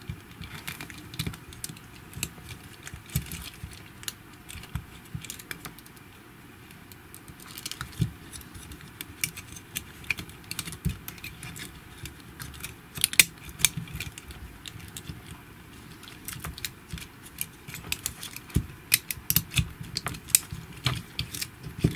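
Small plastic clicks, taps and handling noise from the parts of a GHD Platinum hair straightener arm being worked back together by hand. The clicks come at irregular intervals, sparse at first and busier in the second half.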